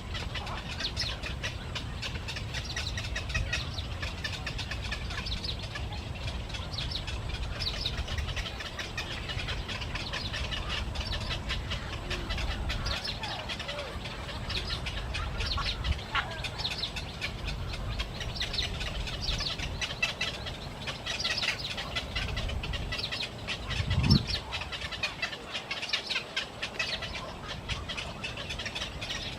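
A flock of birds chirping with many short, high calls throughout, over a steady low rumble. A single low thump stands out about four-fifths of the way through.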